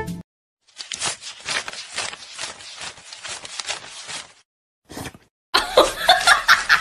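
A stack of paper banknotes being flicked through by hand while counted, a quick run of crisp papery riffles. Near the end a louder run of short high-pitched squeaks or cries comes in.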